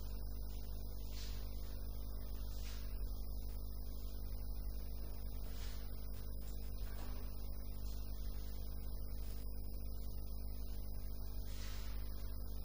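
Steady low hum, unchanging throughout, with a few faint brief soft sounds.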